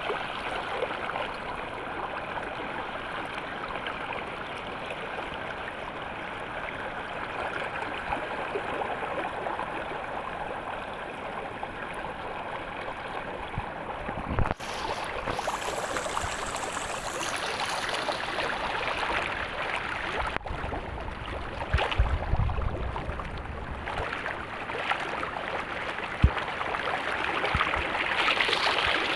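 Water flowing steadily, a stream running toward the sea. The sound breaks briefly about halfway through and is brighter for a few seconds after. A few low thumps come near the end.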